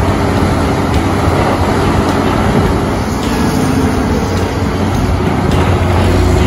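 Morbark 3400 XT horizontal grinder, driven by its Caterpillar C18 diesel engine, running under load as it grinds waste wood. A loud, steady engine drone with a dense noise of material going through the mill.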